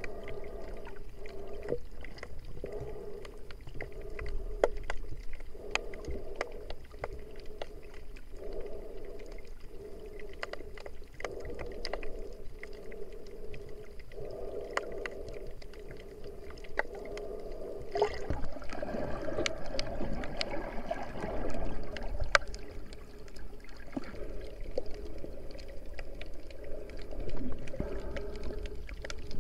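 Muffled underwater sound picked up through an action camera's waterproof housing while snorkeling: a low watery rumble with scattered sharp clicks. It grows louder and fuller for a few seconds about two-thirds of the way in.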